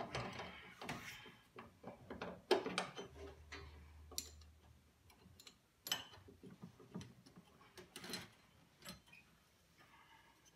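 Irregular clicks and small metal clinks of a hand wrench working on brake-line fittings at the firewall, with some rustling of hands and parts near the start.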